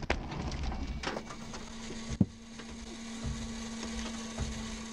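Crash aftermath heard from inside a Hyundai i20 R5 rally car's cabin as it runs off the road into grass and brush: crackling and crunching, one sharp knock about two seconds in, then a steady low hum.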